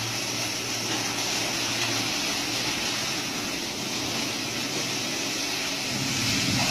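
Steady drone of running machinery with a low hum that shifts lower in pitch about two seconds in.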